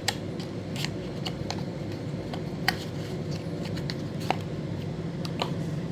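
Scattered light clicks and rustles of packaging being handled as a small tracker is taken out of its box, about eight sharp ticks spread irregularly, over a steady low hum.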